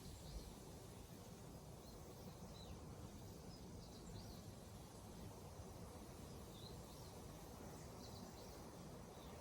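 Near silence: faint low room rumble, with about eight faint, short high chirps scattered through it.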